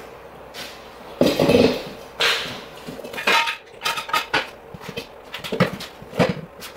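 Metal knocks and clinks of an ATV wheel's steel rim being handled and fitted onto the hub studs. A heavier scuff comes about a second in, and a quick run of sharp clinks follows from about three seconds.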